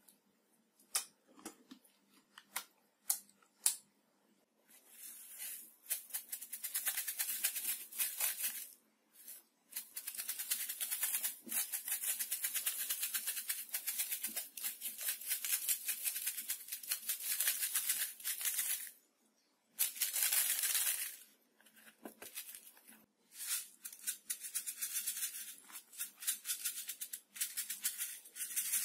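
A container of tiny beads being shaken over slime, a dense rattling that comes in long bouts with short pauses. Before it, a few soft clicks from hands working the slime.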